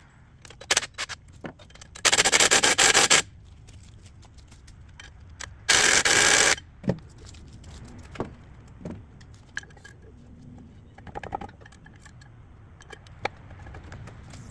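An impact wrench hammering in two short bursts, about two seconds in and again near six seconds, loosening the bolts that hold the excavator's bracket. Between and after them come light metal clicks and knocks as the bracket is worked loose.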